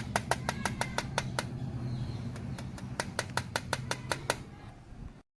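Loose rear plastic body panel of a Honda Activa 6G scooter rattling in quick, irregular clicks, about five or six a second, over a steady low hum. The rattle comes from a gap in the panel fit, with no screw to hold it tight.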